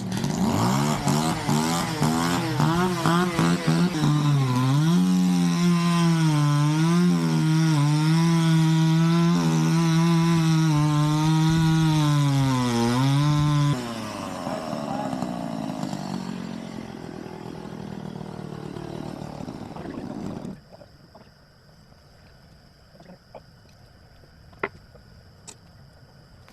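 Gas chainsaw revving, its pitch jumping up and down for the first few seconds, then running at high speed and dipping in pitch as it bogs in the cut, as it saws through the trunk of a small tree being felled. About 14 seconds in the engine drops away suddenly, leaving a fainter noise that stops about 20 seconds in, followed by a few light clicks and one sharp crack.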